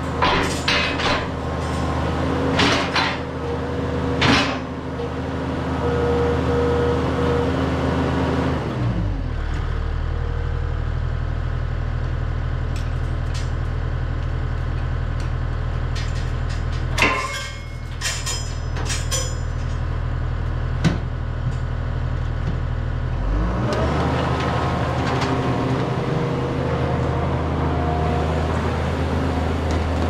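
Takeuchi TL6R compact track loader's diesel engine running, dropping to a low idle about nine seconds in and revving back up a few seconds before the end. Sharp metal clanks come in the first few seconds and again a little past halfway.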